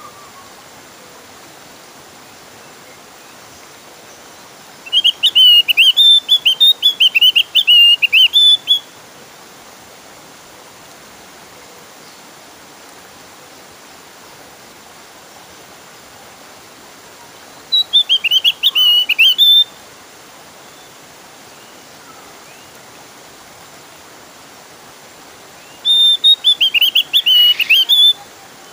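Javan grey-throated white-eye (opior jawa) singing an insistent song in three bouts of rapid, high chirping notes: a long bout of about four seconds, then two shorter ones of about two seconds, over a steady hiss.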